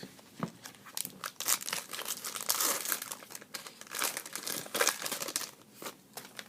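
Plastic trading-card packaging crinkling and rustling as it is handled, in a run of irregular crackles that is busiest through the middle seconds and thins out near the end.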